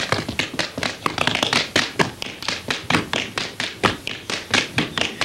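Several dancers' tap shoes striking a wooden stage platform in a quick, even run of taps, about five or six a second, as they dance the paddle-and-roll step together.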